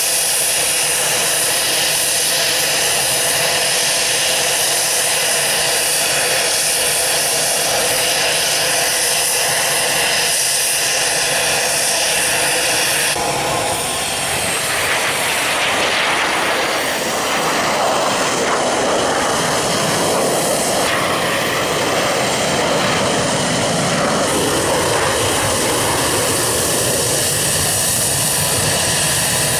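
AH-64D Apache's twin General Electric T700 turboshaft engines running steadily, a loud whine over a rushing hiss. From about 14 s the roar of a formation of BAE Hawk jets taking off swells over it and then settles.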